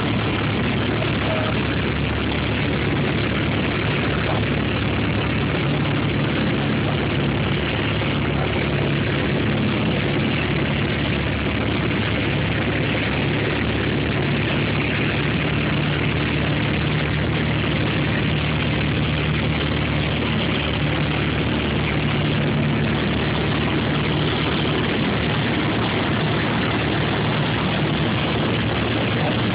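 Piper PA-28's piston engine and propeller running steadily in flight, heard from inside the cabin.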